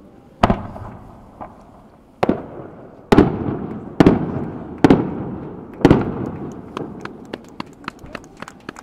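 Aerial firework shells bursting: six loud bangs about a second apart, each trailing off in a long rolling echo. Smaller sharp clicks follow near the end.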